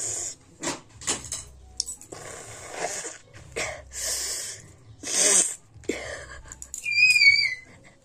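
A woman with a cold-blocked nose tries to sneeze, making a string of short sniffs and breathy huffs, the loudest about five seconds in; no real sneeze comes. Near the end there is a brief high whistle that falls in pitch.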